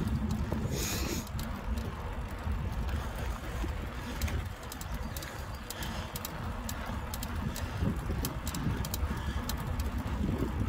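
Mountain bike being ridden, heard from a handlebar-mounted phone: steady wind rumble on the microphone and tyre noise on tarmac, with frequent small clicks and rattles.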